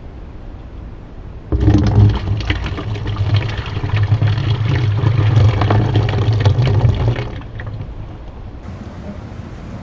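Liquid pouring and splashing into a bucket for about six seconds, starting suddenly and then tailing off.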